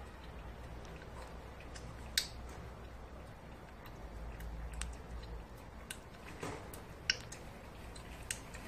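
Siberian chipmunk gnawing a stick of dry, uncooked noodle: a handful of separate crisp crunching snaps, a few seconds apart, the sharpest about two seconds in and again near the end.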